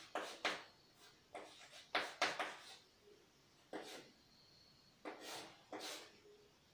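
Chalk scraping on a chalkboard as words are written and lines drawn: a series of short scratchy strokes with pauses between them.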